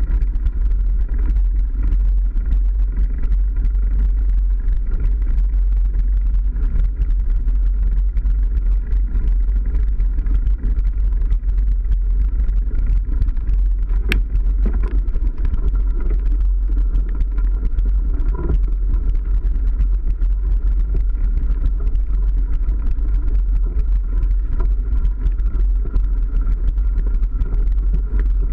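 Mountain bike rolling along a dirt forest track, heard from a bike-mounted camera: a steady low rumble of wind buffeting the microphone and tyre vibration from the trail. A single sharp click comes about halfway through.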